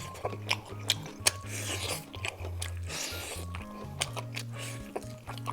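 Crunchy bites and chewing of deep-fried skewers, with many sharp crackling crunches, over background music with a steady bass line.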